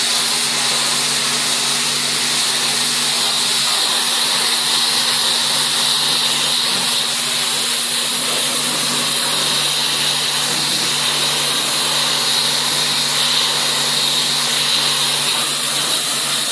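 Pressure-washer lance at a self-service car wash spraying a car body: a steady hiss of the high-pressure water jet, with a steady low hum underneath.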